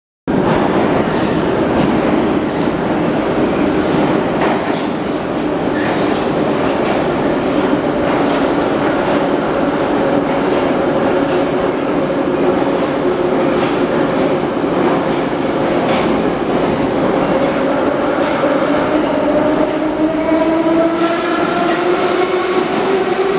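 Moscow Metro 81-717.5M subway train running past the platform with a steady rumble of wheels on rail and faint clicks. Its traction motors whine, and the whine dips a little and then climbs steadily in pitch over the last several seconds as the train accelerates.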